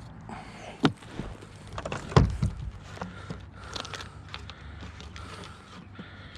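Fishing gear being handled in a kayak: two sharp knocks, the second the louder, with lighter clicks and rattles between and after them, over a steady low hum.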